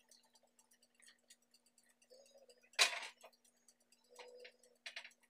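Frying pan set down on a gas stove's burner grate with one sharp clink about three seconds in, among light taps and scrapes of a silicone spatula against the pan.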